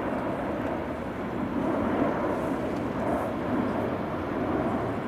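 Embraer KC-390 in a banking display pass, its twin IAE V2500 turbofan engines making a steady jet rumble that rises and falls slightly in loudness.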